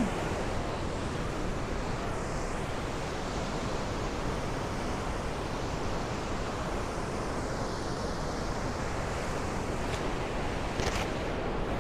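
Steady rush of white water as the Waikato River is forced through the narrow rock chasm at Huka Falls.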